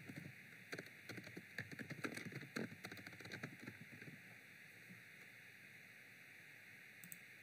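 Faint computer keyboard typing: a short run of irregular key clicks that stops about four seconds in.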